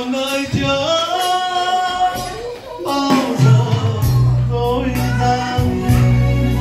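Karaoke backing track of a Vietnamese ballad playing through the sound system: a held melodic line over light percussion, with a bass line coming in about three and a half seconds in.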